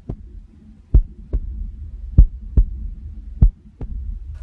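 A slow heartbeat: four lub-dub double thumps, a pair about every second and a quarter, over a low steady hum.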